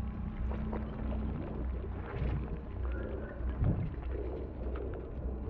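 Muffled underwater film ambience: a steady low rumble with scattered faint clicks and a few short warbling tones.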